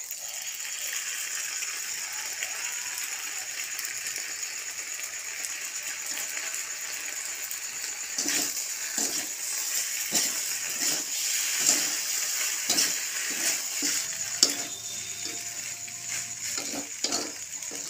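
Penne frying in an iron kadai with a steady sizzle. From about halfway, a metal spatula scrapes and knocks against the pan about twice a second as the pasta is stirred.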